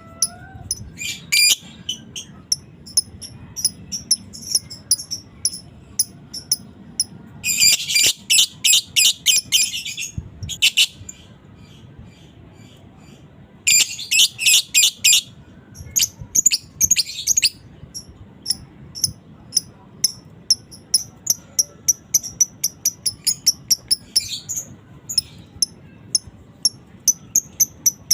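Lovebird calling: sharp, high-pitched chirps repeated in quick series, with two dense rapid chattering bursts of about two seconds each, about a third of the way in and near the middle. This is the long "ngekek" call of a fighter lovebird.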